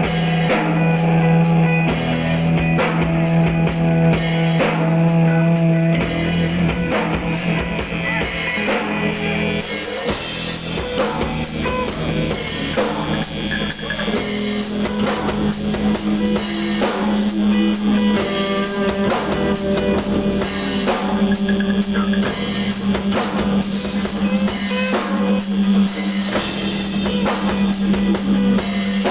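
Live instrumental rock from an early-1990s emo band: electric guitars, bass and drum kit, without vocals. The drums and cymbals come in heavier about ten seconds in.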